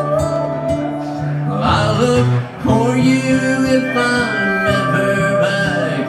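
Strummed acoustic guitar with a pedal steel guitar playing long held notes that bend and glide in pitch.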